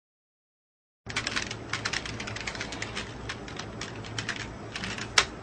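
Typing on a computer keyboard: quick, irregular key clicks that start about a second in, with one sharper key strike near the end.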